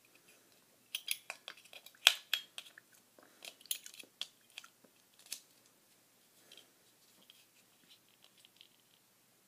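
A run of small, sharp clicks and crackles close to the microphone, busiest in the first half and thinning to faint ticks toward the end.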